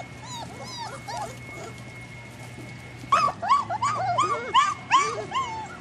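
Four-week-old Fila Brasileiro puppies whining and yelping in short, high, arched cries. The cries are faint at first, then from about halfway in they grow louder and come quickly, about three a second.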